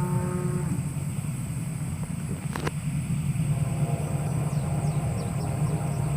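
Approaching freight locomotive rumbling, its raised-letter Nathan K5LA five-chime air horn sounding a chord at the start that stops under a second in, then sounding again from about halfway. A single sharp click near the middle.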